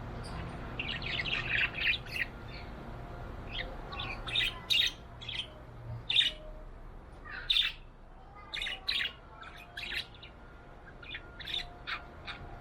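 Pet budgerigar chirping in short, sharp calls, with a quick run of chatter about a second in and then scattered single chirps and squawks.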